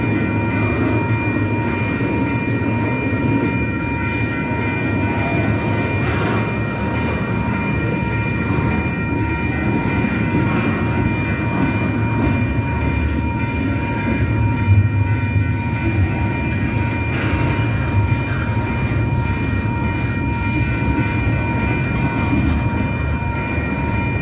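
Double-stack intermodal container train rolling past on its well cars: a steady, loud rumble and rattle of wheels on rail. A thin, steady high tone runs over it.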